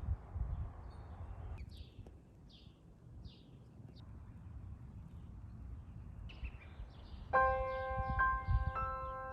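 Birds chirping in short high calls over a faint outdoor rumble. About seven seconds in, bell-like chiming background music begins.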